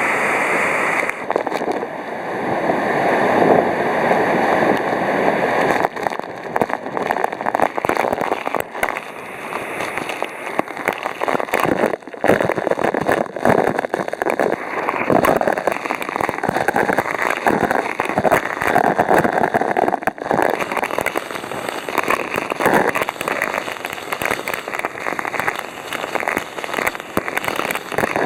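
Rushing water of a river swollen by a typhoon, a continuous heavy rush that swells and eases, with occasional brief knocks.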